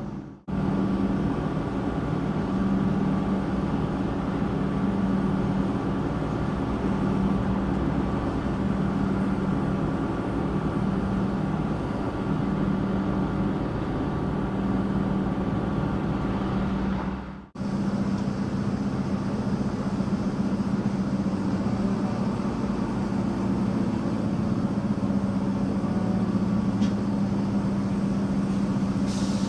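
A train running steadily with a constant low hum and rumble. The sound cuts out briefly twice, near the start and a little past halfway, where the video is edited.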